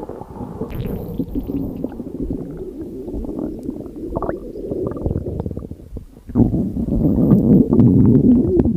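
A person's stomach growling: a continuous low gurgling rumble that grows louder about six seconds in.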